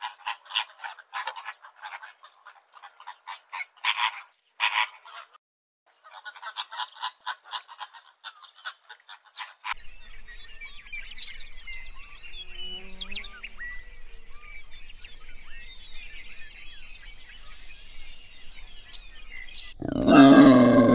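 A flock of flamingos calling, a dense chatter of quick nasal honks, breaking off briefly near the middle and ending about ten seconds in. Then it goes quieter, with faint bird chirps over a low hum. In the last second a wild boar starts grunting loudly.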